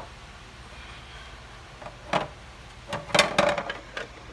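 Several sharp knocks and clatters of kitchen items being handled: one about two seconds in and a quick cluster from about three seconds, over a faint steady low hum.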